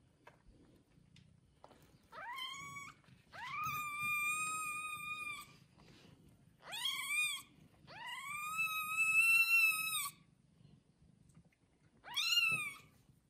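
Newborn kitten, one day old, crying: five high-pitched mewing calls, each rising quickly in pitch at the start, the second and fourth drawn out to about two seconds.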